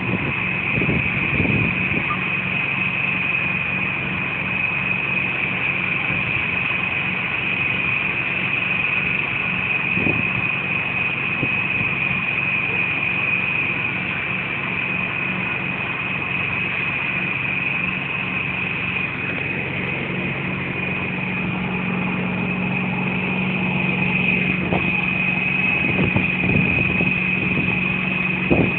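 A large vehicle engine idling steadily, with a constant high-pitched whine over it.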